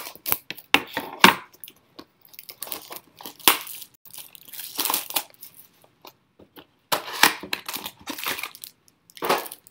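Football trading-card packaging being torn open: wrapper crinkling and tearing in short, irregular rustles and sharp clicks.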